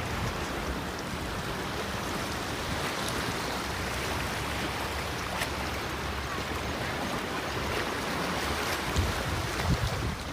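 Sea waves washing steadily on the shore.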